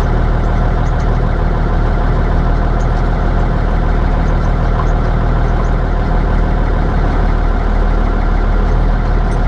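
Cummins 855 inline-six diesel of a 1952 Kenworth CD-521 running steadily at an even pitch, heard from inside the cab.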